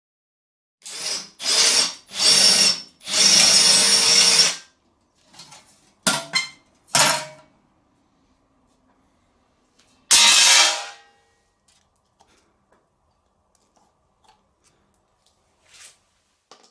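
Power drill run in short bursts, seven times, each spinning up with a rising whine and stopping; the last burst comes after a pause of about three seconds.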